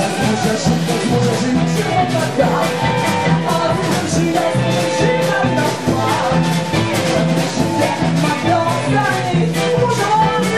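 Live band playing an upbeat song with accordion and electric guitars over a steady beat.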